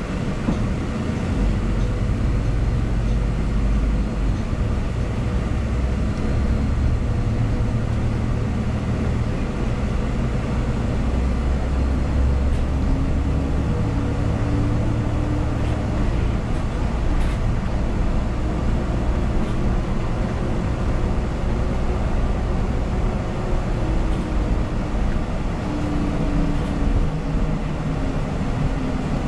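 A city transit bus under way, heard from inside the passenger cabin: steady engine and road noise, heavy in the low end. A faint hum rises and falls in pitch as the bus speeds up and slows.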